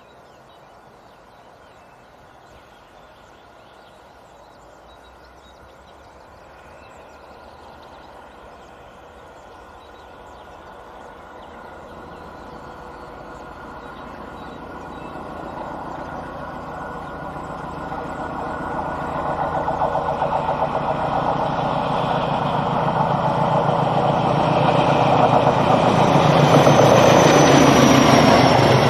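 Medway 1435, a Class 1400 diesel-electric locomotive, approaching under power. Its diesel engine's growl grows steadily louder as it nears, and a high whine comes in near the end as it draws close.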